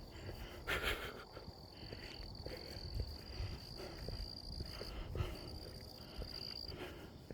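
A man breathing hard as he walks, with one louder breath about a second in and soft, irregular footfalls. A steady high-pitched whine runs through most of it, breaking off briefly about five seconds in.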